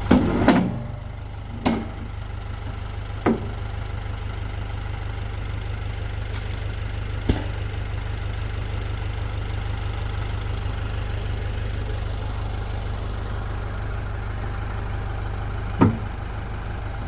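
An engine idling steadily with a fast low pulse, while about five sharp knocks sound over it, the loudest near the end.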